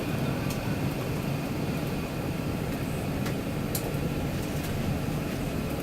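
Steady low rumble of cabin noise inside an Airbus A380 airliner, with a few faint clicks.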